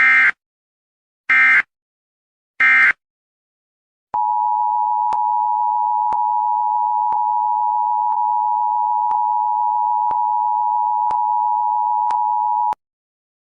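Emergency Alert System–style signal: three short, harsh digital data bursts, then the steady two-tone EAS attention tone held for about eight and a half seconds, with a faint tick about once a second, cutting off abruptly.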